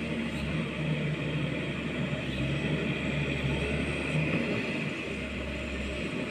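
Pindad excavator engine running steadily with a low hum.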